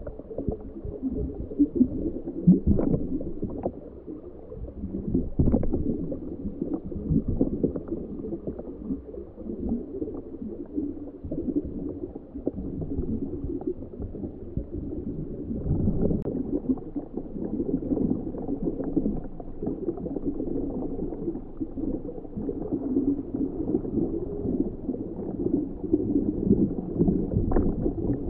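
Muffled, irregular gurgling and bubbling of water, picked up underwater by a camera sealed in a homebuilt ROV's housing, with a few short knocks.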